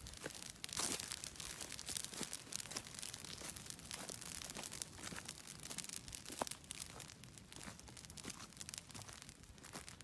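Dense, irregular crackling and crunching in dry pine-forest litter and undergrowth where a ground fire is burning.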